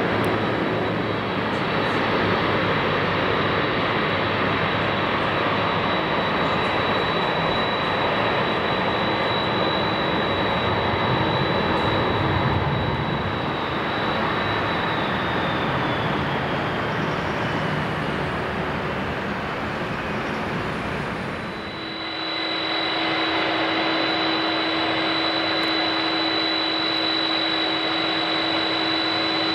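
Jet airliner engines running: a steady rush with a high whine that slowly falls in pitch about halfway through. Near the end it switches abruptly to a different steady jet whine.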